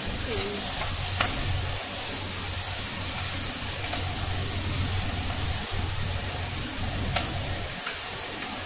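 Peas and carrots sizzling in oil in an aluminium kadhai while a slotted steel spatula stirs them, with a few sharp clicks of the spatula against the pan.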